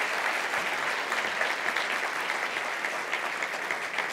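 A large audience applauding steadily, a dense sound of many hands clapping.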